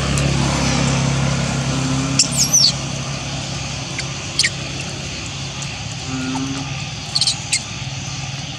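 Outdoor ambience: a steady low hum runs throughout, with a few short, high-pitched chirps that glide in pitch about two seconds in and again near the end, and a single sharp click in the middle.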